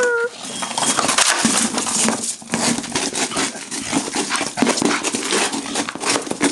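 Bulldog gnawing and scraping at a plastic traffic cone: a busy run of clicks, knocks and scrapes of teeth on hard plastic.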